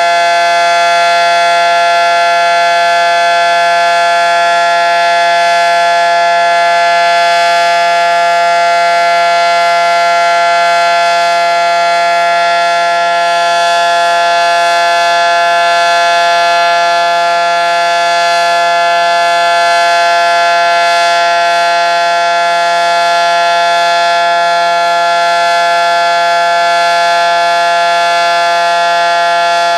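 Federal Signal SD-10 dual-tone electromechanical outdoor warning siren sounding a loud, steady chord at a constant pitch during a scheduled siren test.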